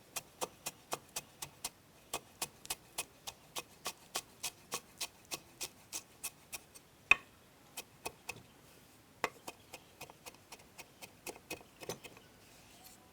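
Light, regular tapping of a kitchen utensil working chopped lemongrass, garlic and chili, about three taps a second, turning sparser and fainter after about seven seconds, with one sharper knock about seven seconds in.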